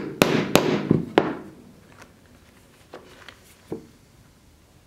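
A hammer tapping the stitched leather cover of a sword scabbard on a wooden bench board: three sharp knocks in the first second and a bit, followed by a few faint clicks of hand tools around three to four seconds in.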